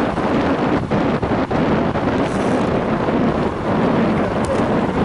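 Wind rushing over the microphone of a camera on a road bicycle riding at speed, a loud steady rush, with a few short knocks in the first second and a half.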